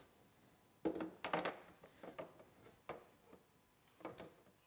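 Plastic pipe and fittings being handled: a few light, irregular knocks and scrapes.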